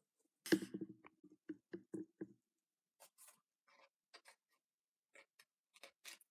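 Light rustling and crinkling of cut paper being handled, with a pair of small scissors set down on a pile of paper strips. About half a second in there is a short low murmur lasting under two seconds, then sparse soft crinkles and clicks.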